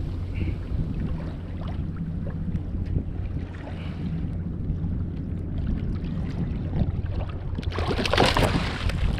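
Steady wind buffeting the microphone, with light water noise around a kayak. About eight seconds in, a loud splash as a hooked fish thrashes at the surface beside the kayak.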